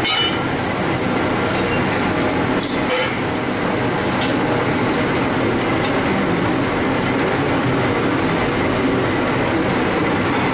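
Steady rushing roar of a commercial kitchen: extraction hood fan and lit gas range burners running. A few light clinks of metal pans and utensils in the first few seconds.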